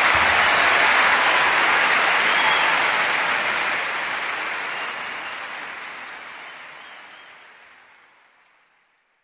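Audience applause, fading out gradually over about eight seconds.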